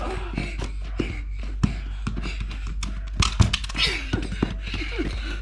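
Music, with sharp knocks of a football being kicked and bouncing on a stone-paved street, and running footsteps; the strongest knocks come in a cluster a little past the middle.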